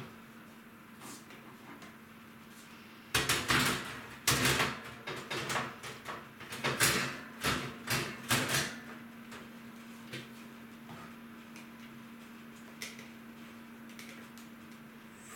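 Kitchenware being handled and set down, a run of clattering knocks and clanks starting about three seconds in and lasting about five seconds, over a steady low hum.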